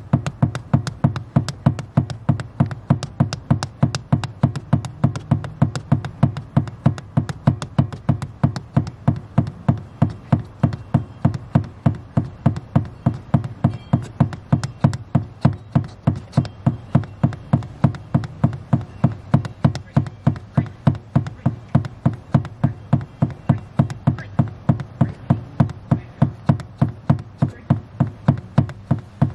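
Even, rapid clicking, nearly three sharp clicks a second without pause, over a steady low hum.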